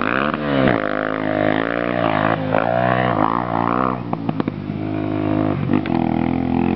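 Motocross motorcycle engine revving, its pitch rising and falling repeatedly, then settling to a steadier note for the last few seconds. A few sharp clicks come about four seconds in.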